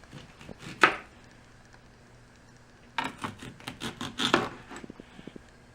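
Knife cutting star fruit on a cutting board: a sharp stroke about a second in, then a quick run of several cuts from about three seconds in.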